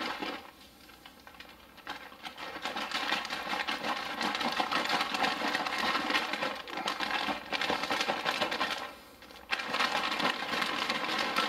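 An MRE beverage pouch with hot water and cappuccino powder sealed inside, shaken hard to mix the drink: a fast, rhythmic crinkling of the pouch. It is fainter for the first two seconds and breaks off briefly about nine seconds in.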